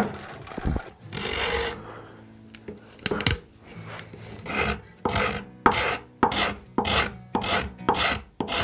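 Flat metal file rasping across the edge of a wooden vise jaw. One stroke about a second in, then from about halfway a steady run of strokes, about two a second.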